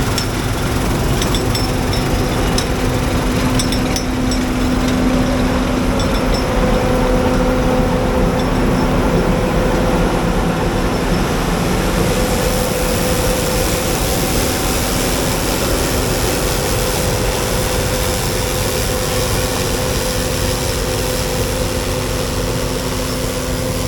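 Combine harvester running steadily while cutting wheat, a constant machine hum with a few light ticks in the first few seconds.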